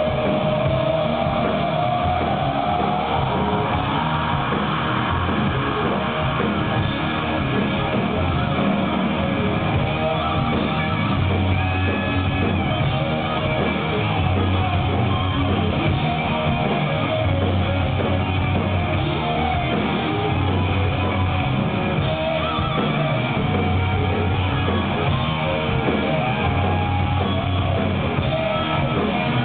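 Live stoner rock band playing with distorted electric guitars, bass and drums, heard from the crowd. A guitar line glides upward in pitch near the start.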